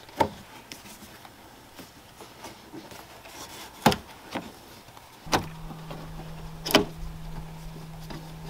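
Sparse clicks and light knocks of hands working plastic interior clips and trim loose on a BMW E36's trunk lid, with three sharper clicks among them. About five seconds in, a steady low hum starts and keeps going.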